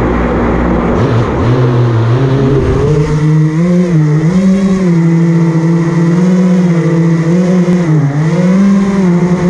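FPV racing quadcopter's brushless motors and propellers, heard from a camera on the drone: a loud whine that spins up from the ground about a second in, then keeps rising and dipping in pitch as the throttle changes in low, fast flight, with a steep rising whine near the end.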